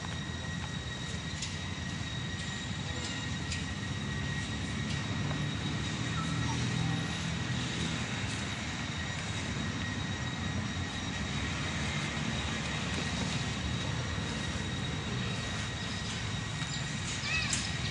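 A steady low engine rumble, as of distant vehicles, with a faint steady high whine above it and a few soft chirps.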